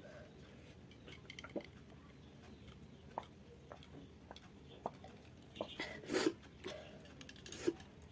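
Quiet mouth and breath sounds from a person whose mouth is burning from very spicy noodles: scattered small lip clicks and smacks, with a short louder breath sound about six seconds in and another near the end.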